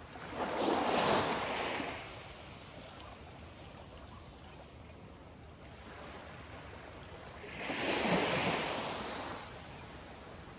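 Small waves lapping on a sandy beach of a calm bay: two gentle washes about seven seconds apart, each swelling and fading over about two seconds, with a low steady hiss of water between them.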